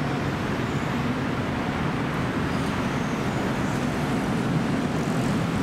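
Steady city traffic noise, an even low rumble with no single vehicle standing out.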